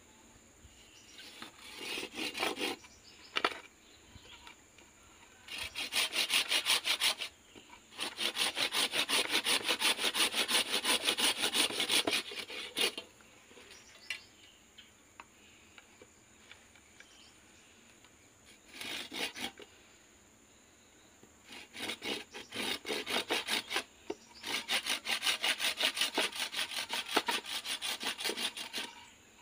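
Curved hand pruning saw cutting through the green stems and roots of a freshly dug anting putri (Wrightia religiosa) plant. It goes in several bouts of quick back-and-forth strokes, with short pauses between them.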